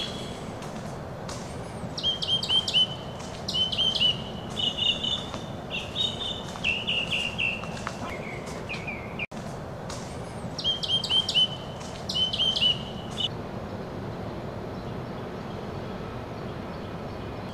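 A songbird singing in two spells of quick repeated phrases, each a few sharp high notes followed by a run of lower chirps, over a steady background hum.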